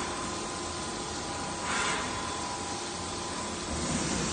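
CNC milling machine cutting, with coolant spraying at the cutter: a steady hiss over a faint steady whine. It swells briefly about two seconds in and again near the end.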